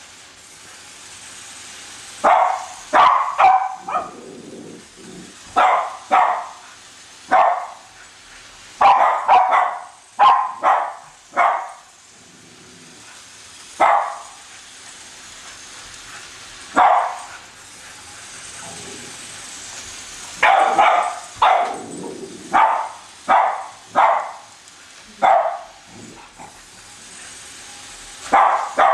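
Cavalier King Charles spaniel barking at a toy train, in short sharp barks, some single and some in quick runs of two to four, with pauses of a few seconds between groups.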